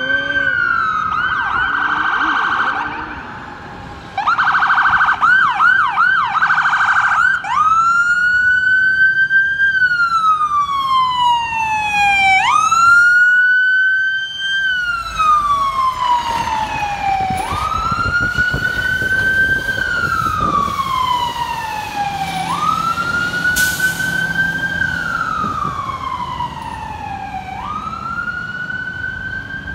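Fire truck siren running: fast yelp cycles for the first several seconds, then a slow wail that climbs quickly and sinks over about five seconds, again and again, with the truck's engine and traffic rumbling underneath.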